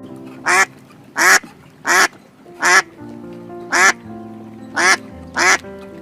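Duck quacking: seven short, rasping quacks spaced about a second apart, over background music.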